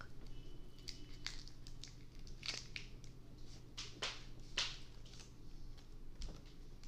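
Packaging being handled, crinkling with irregular sharp crackles; the loudest come about two and a half and four to four and a half seconds in.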